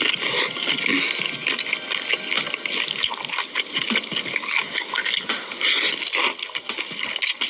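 Close-miked wet chewing and mouth sounds of someone eating a prawn: steady smacking with many small clicks throughout.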